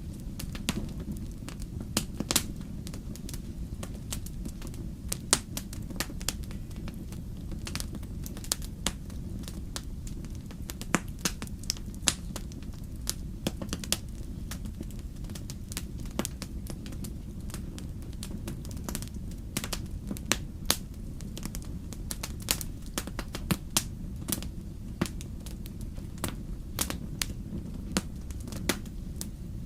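Wood fire in a fireplace crackling, with sharp irregular pops and snaps over a steady low rumble of the flames.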